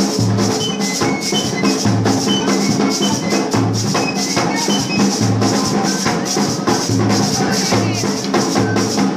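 Jonkonnu masquerade music: a deep drum thumping about once every second or two under a shaker rattling in quick, even strokes, with short high notes on top.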